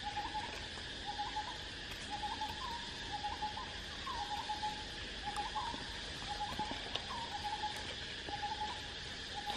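Forest ambience: a steady chorus of insects with a short mid-pitched call repeating over and over, roughly once or twice a second.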